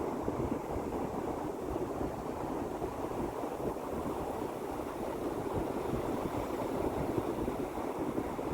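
Sea waves breaking on a shore: a steady rushing noise with no single wave standing out.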